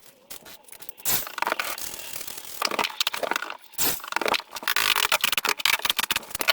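Carpentry work noise: irregular scraping and clattering with many quick knocks, busier in the second half.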